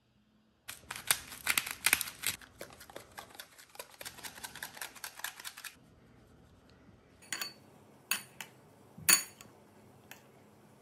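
Kitchen food-prep sounds while handling sweet corn: about five seconds of dense crackling and scraping, then three separate sharp clicks.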